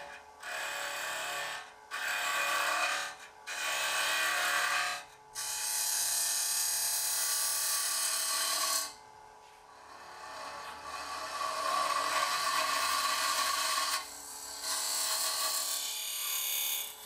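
Wood lathe spinning while a Robert Sorby TurnMaster box cutter hollows out the inside of a small box lid, the cutter scraping through the wood in about six passes, some a second long and some several seconds, each dropping away as the tool is drawn back. A steady hum from the lathe runs underneath.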